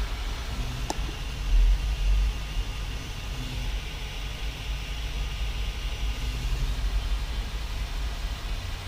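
UP Plus 2 3D printer running its automatic bed-levelling calibration: a low steady hum and rumble from its motors and fan, with a short click about a second in.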